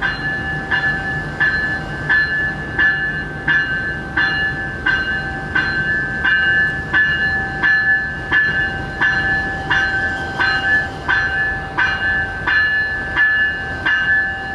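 Locomotive bell on a Siemens ALC-42 diesel-electric ringing steadily, about three strikes every two seconds, as the locomotive moves slowly under its own power. A low diesel engine hum runs beneath it, fading somewhat after the first few seconds.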